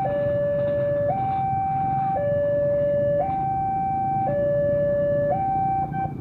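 Level-crossing warning alarm sounding a two-tone electronic signal, switching between a low and a high tone about once a second, warning that a train is approaching; it cuts off suddenly near the end.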